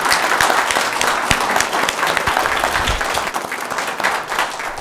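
Applause: a crowd of people clapping in a meeting chamber, a dense patter that starts to taper off near the end.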